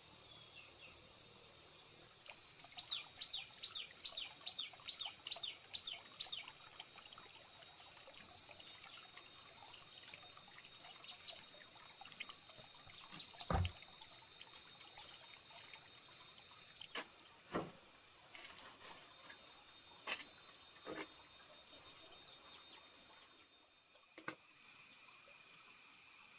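A bird calls a quick run of about nine sharp, falling notes over a few seconds, over a faint steady high insect drone. Several separate knocks follow, the loudest about halfway through.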